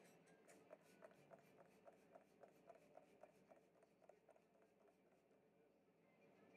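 Near silence, with faint quick ticks, about five a second, over the first four seconds or so.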